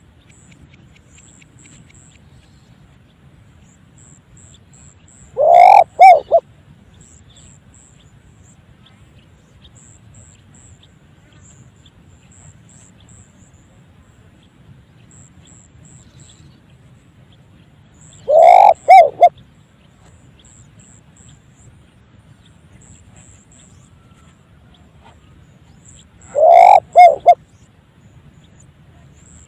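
Spotted dove calling three times, each call a long cooing note run straight into two short notes, with long pauses between calls. The recordist takes it for an unusual, strange-sounding call for a spotted dove.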